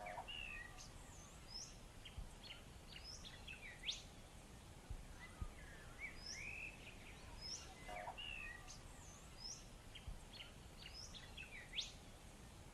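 Faint birdsong ambience: several small birds chirping and twittering in short rising, falling and V-shaped calls over a low background rumble. The same run of chirps comes round again about every eight seconds, like a looped recording.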